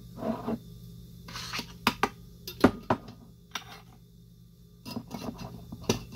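Glass mason jars with metal lids being handled on a tabletop: a handful of sharp knocks and clinks with brief rustling, the loudest knock a little under three seconds in.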